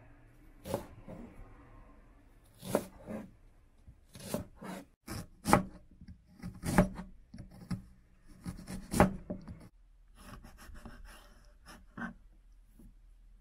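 Kitchen knife slicing green onion, ginger and dried red chili on a cutting board: irregular sharp knocks of the blade hitting the board, with crisp cutting and scraping between the strokes.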